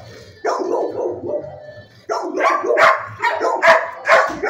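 Shelter dog barking repeatedly: a longer run of barks starting about half a second in, then a quick series of sharp barks, about two a second.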